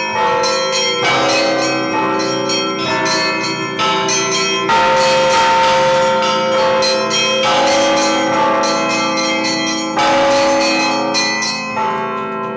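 Russian Orthodox church bells rung by hand: a rapid, dense pattern of strokes on the small high bells over the middle bells, all ringing on together, with fresh heavier strokes about five seconds in and again near ten seconds.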